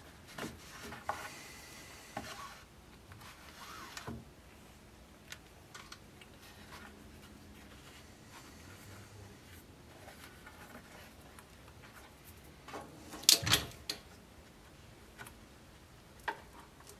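Hand-stitching leather: faint rubbing and rustling as thread is drawn through the leather and the hands work the seam, with scattered small clicks. A short cluster of sharp knocks about two-thirds of the way through is the loudest sound.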